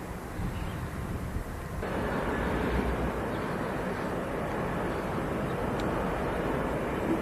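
Streamlined cab-unit diesel locomotive running steadily on its approach, with a low rumble under it; the sound jumps louder about two seconds in.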